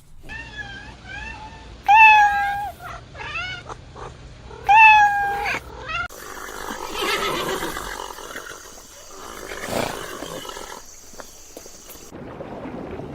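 A cat meowing several times, each meow about a second long, dropping in pitch and then holding; two of the meows are much louder. About six seconds in, the sound cuts to a noisy stretch with no clear calls.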